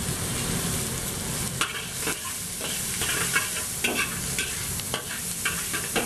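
Diced celery and onion sizzling in hot oil in a wok while a metal spatula scrapes and taps against the wok in short, irregular strokes over the steady sizzle.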